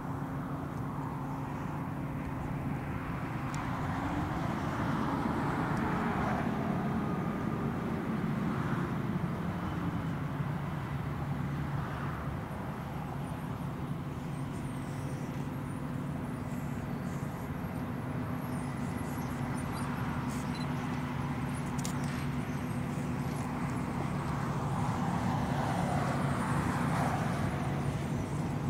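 Case 220 tractor and AVR Spirit 9200 onion harvester at work, with a second tractor alongside: a steady diesel engine drone. One engine note rises about four seconds in and falls back by about ten seconds.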